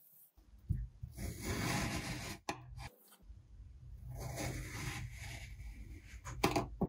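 Knife blade slicing down through a block of kinetic sand: two long, grainy, scraping passes as the sand crumbles apart, with a sharp tap near the end.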